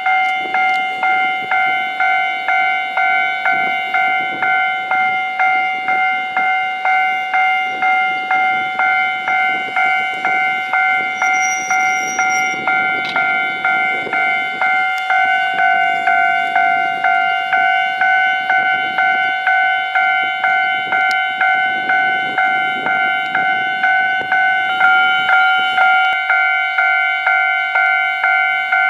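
Railway level-crossing alarm ringing steadily at about two strokes a second, the warning that a train is approaching.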